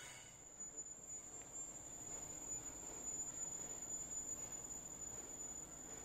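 Steady high-pitched insect trill over faint background noise.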